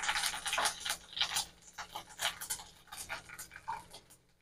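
Mustard seeds, curry leaves and dried red chillies sizzling and crackling in hot oil, with irregular pops that thin out toward the end.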